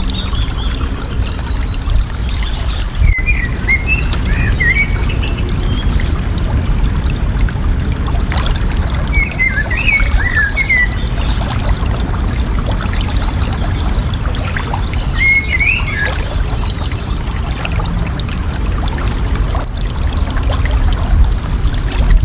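Water running and babbling steadily, with a songbird singing short warbling phrases about every six seconds.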